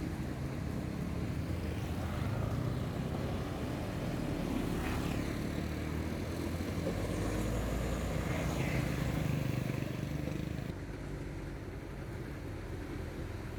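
Road traffic: a large vehicle's engine running steadily with a low rumble, easing off somewhat near the end.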